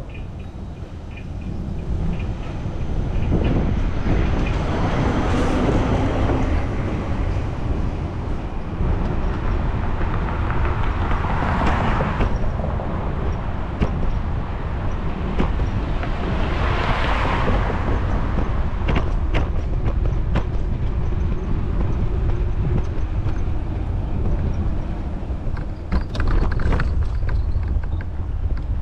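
Wind rushing over the microphone of a camera on a moving bicycle, over city traffic noise. Three vehicles swell up and pass, a few seconds apart, and near the end there are a series of short rattling clicks.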